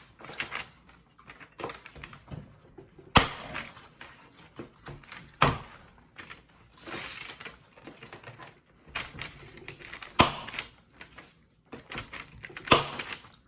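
Hard giant SweeTarts candy cracking: four loud, sharp cracks a few seconds apart, with smaller crunches and clicks between them.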